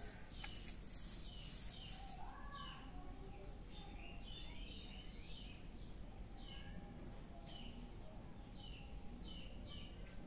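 Small birds chirping faintly in the background: short, falling notes repeated again and again, with a busier run of warbling notes about four seconds in.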